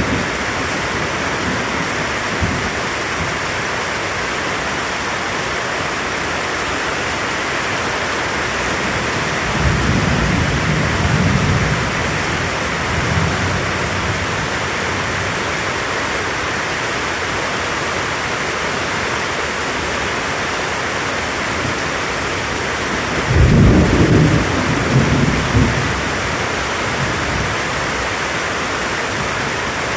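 Thunderstorm: steady rain hiss, with two low rumbles of thunder, one about ten seconds in and a louder one at about twenty-three seconds.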